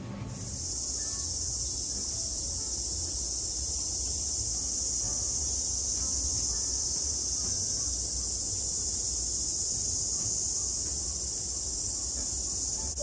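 A steady, high-pitched insect chorus drones on without a break, over a low rumble.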